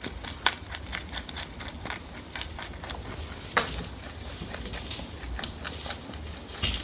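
Mini lop rabbit chewing cauliflower leaves: quick, irregular crisp crunches, with louder snaps about half a second in and about three and a half seconds in.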